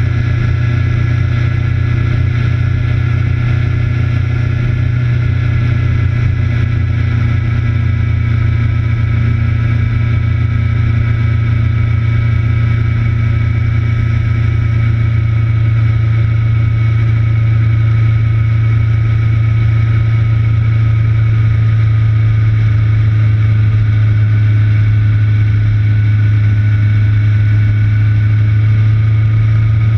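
A vehicle's engine heard from a camera mounted on the vehicle, running at steady, nearly constant revs. Its drone shifts only slowly and slightly in pitch, with no gear changes.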